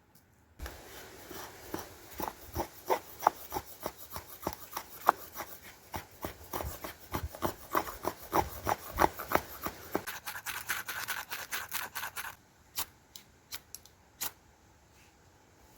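Quick scraping, rasping strokes, about three or four a second, with an uneven rhythm. They stop suddenly about twelve seconds in, leaving a few single clicks.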